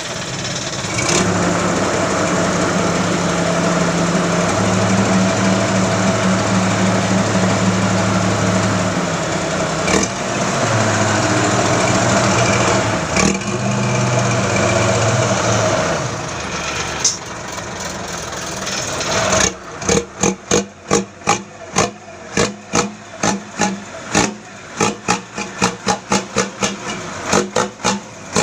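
Mitsubishi Fuso dump truck's diesel engine running through a split racing exhaust that gives it a snoring sound. For most of the first half it is held at steady revs that change in steps. Then it drops back, and from about two-thirds in it gives a rapid run of short, sharp blasts, about two a second.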